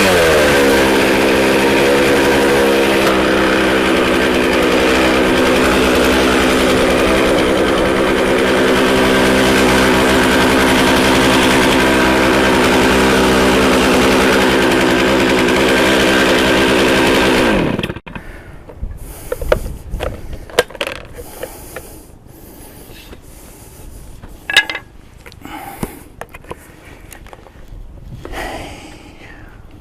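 Chainsaw engine dropping from high revs to idle at the start, then running steadily, and shutting off about 18 seconds in. After that, scattered knocks and clunks.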